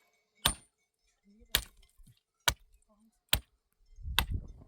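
Five sharp, ringing blows of a hand tool, about one a second, typical of chopping or hammering while building a wooden shelter. A low rumbling noise comes in near the end.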